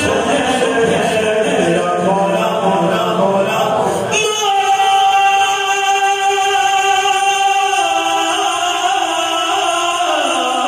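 A man singing a devotional kalaam in praise of Imam Husain into a microphone, drawing out long melismatic notes. About four seconds in he settles on one long held note, which steps down in pitch around eight and again around ten seconds.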